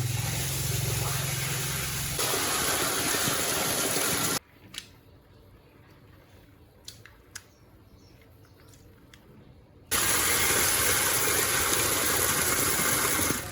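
Water running hard, likely from a tap, with a low hum under it at first. It stops abruptly about four seconds in, leaving a few light clicks, and starts again just before ten seconds.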